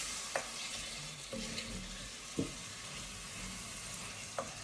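Chopped tomatoes and vegetables sizzling in a cast iron casserole pan as they are stirred with a wooden spoon, with a few light knocks of the spoon against the pan.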